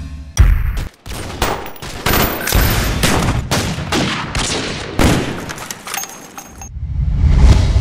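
Rapid bursts of automatic gunfire with a deep low rumble, laid over the title card as a sound effect. There is a brief break about a second in, and it swells into a low rumble near the end.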